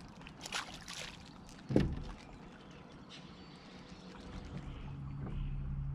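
Brief water splashing, then a single sharp thump on a small fishing boat a little under two seconds in, the loudest sound here. A steady motor hum comes up and grows louder over the last couple of seconds.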